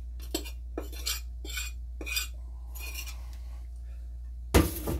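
Metal spoon scraping and clinking against a bowl while scooping out damp mushroom substrate: a string of light scrapes and clinks, then a much louder clatter near the end. A steady low hum runs underneath.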